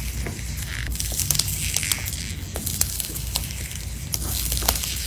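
Thick, textured tan slime being pressed and poked with fingers as it sits heaped on its jar, giving an irregular run of small crackles and pops, several a second.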